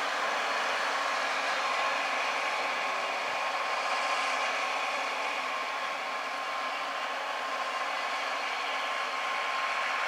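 John Deere crawler tractor pulling a seven-furrow mounted plough: engine and tracks running steadily under load, with a faint steady whine over the machinery noise.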